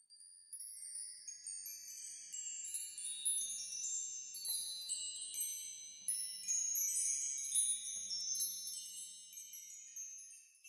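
Twinkling chimes: many high, clear ringing tones struck one after another and overlapping, starting about half a second in.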